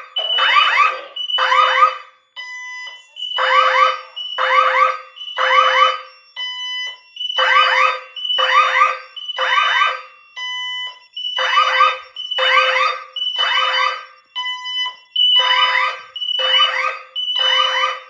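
Several security alarm panels and their sirens sounding a fire alarm together in the three-pulse fire pattern: groups of three loud, sweeping pulses repeating about every four seconds, with a thinner steady tone in the gaps between groups.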